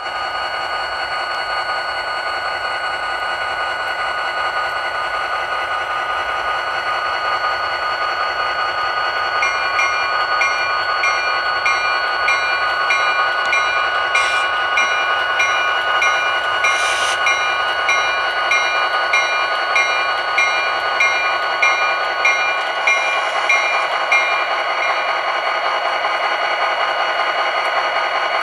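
Model diesel locomotive's onboard sound playing a running diesel engine through a small speaker as the model train passes. From about ten seconds in until a few seconds before the end there is an even clicking, about one and a half a second.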